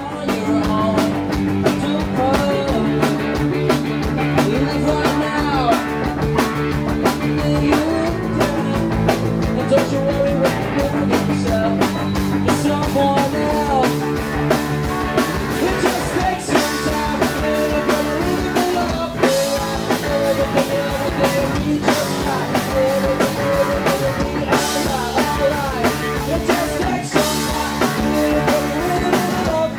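Rock band playing live: electric guitars, bass guitar and drum kit, with a lead singer.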